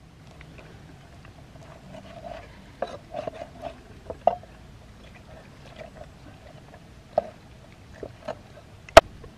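Puppies whimpering with a thin, wavering whine that rises in short swells. There are small scraping clicks of a cleaver on a fish, and one loud, sharp chop of the cleaver into a wooden chopping block near the end.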